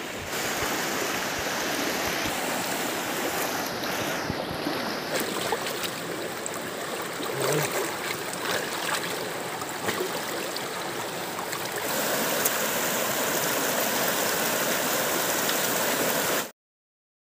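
Shallow rocky river rushing and splashing over stones, a steady noise of flowing water with a few small clicks. It grows a little louder and steadier about twelve seconds in, then cuts off suddenly near the end.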